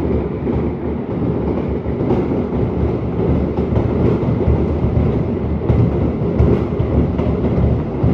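Fireworks barrage: many shells bursting in quick succession, blending into a continuous loud rumble with rapid crackling thuds.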